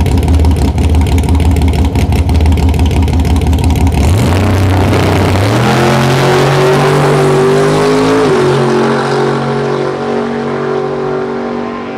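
A drag-racing Ford Mustang's V8 held at steady revs with a rapid stutter on the starting line, then launching about four seconds in. The revs climb, drop sharply at a gear shift about eight seconds in, and the engine pulls on, fading as the car runs away down the track.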